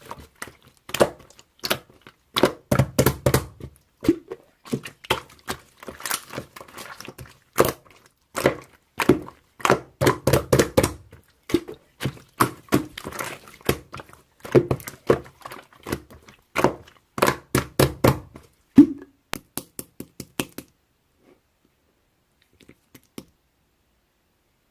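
Slime being squeezed, pressed and stretched by hand, giving rapid sticky clicks, pops and crackles with some soft thuds. The sound stops a few seconds before the end.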